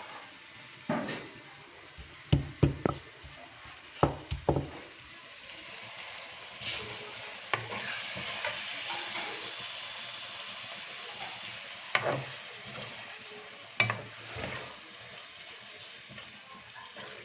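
Pieces of liver sizzling in hot oil in a pan, stirred with a spoon that knocks and scrapes against the pan several times. The hiss grows louder in the middle.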